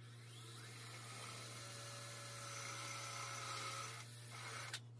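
Cordless drill running a bit into the wooden fence of a table-saw crosscut sled, a faint steady whir that stops about four seconds in. A short click follows near the end.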